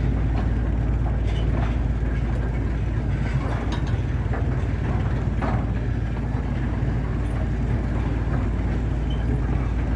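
Narrow-gauge side-dump hopper wagons rolling slowly past behind a BNE 50 diesel shunting locomotive: a steady low engine drone with occasional sharp knocks from the wheels and couplings.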